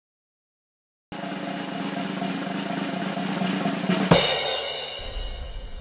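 Intro music: a drum roll that swells for about three seconds and ends about four seconds in on one loud hit, which rings out and fades.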